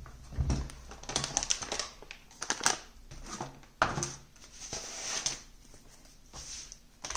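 Graphics card packaging being handled: irregular crinkling and rustling with scattered clicks and knocks, and a sharp knock just before four seconds in.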